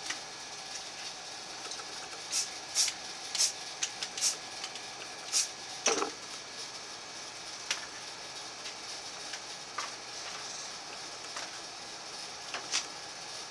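Short spurts of rattle-can spray paint, a dozen quick hisses at irregular intervals, most of them between about two and six seconds in, as detail is sprayed through a camo stencil. Steady background noise runs under them.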